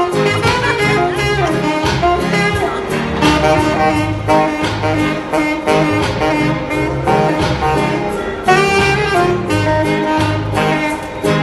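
Saxophone played live in a jazzy melody over backing music with a steady bass beat.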